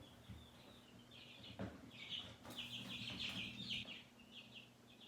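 A small bird chirping in a run of short, scratchy bursts, over a low steady hum, with a couple of light clicks.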